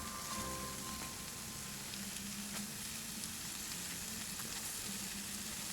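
Food sizzling as it fries over heat: a steady crackling hiss with a few small pops.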